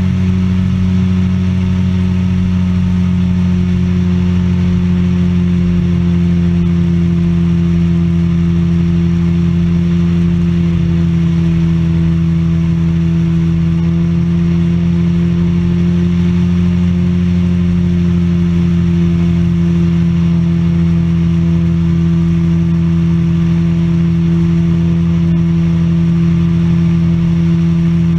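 Weight-shift microlight trike's engine and pusher propeller running steadily in level flight, a constant drone whose pitch eases slightly lower about three seconds in.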